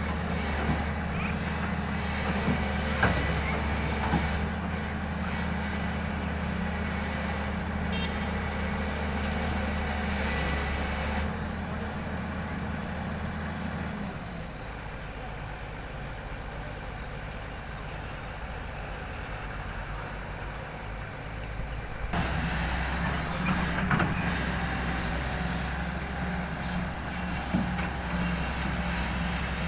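Diesel engine of a SANY SY220C-9 excavator running steadily, with occasional knocks. About 14 seconds in it drops to a lower, quieter hum, and about 22 seconds in it comes back up.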